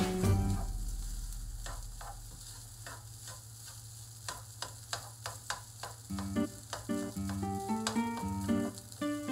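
Fried rice being stirred in a non-stick wok: a plastic spatula scrapes and taps against the pan in irregular strokes over a faint sizzle. Background music fades out in the first second and comes back about six seconds in.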